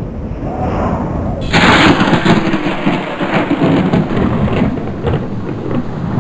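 A sudden loud crack of thunder about a second and a half in, followed by a long crackling rumble.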